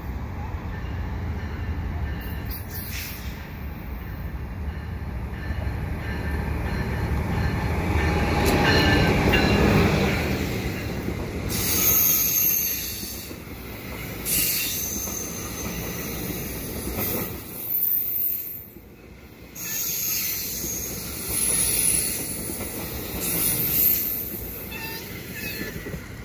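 Exo commuter train of an ALP45DP locomotive and Bombardier multilevel coaches running through the station without stopping. The rumble builds as it approaches and is loudest about ten seconds in. After that, high-pitched wheel squeal and the rush of the coaches come and go as they pass.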